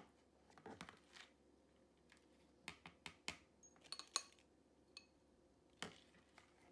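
Light clinks and taps of a wire mesh skimmer against a glass bowl as blanched broccoli florets are tipped into it, several separate knocks a second or so apart.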